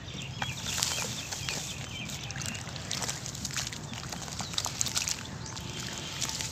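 Hands squeezing and mixing wet sand-cement paste in a plastic tub: wet squelching and gritty crackling with water sloshing.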